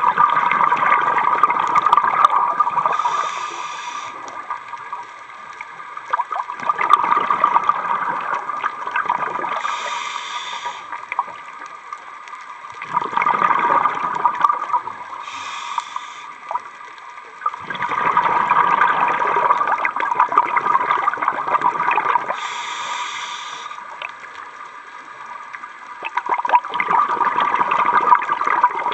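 A scuba diver breathing through a regulator underwater, five slow breaths in a row. Each breath is a brief hiss of inhaled air followed by a long rush of exhaled bubbles.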